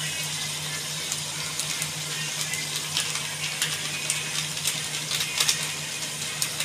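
A plastic spice packet crinkling and crackling as it is squeezed and shaken out over a pot, with the spice powder pouring. The crackles come in quick irregular clusters, loudest a little after five seconds in, over a steady low hum.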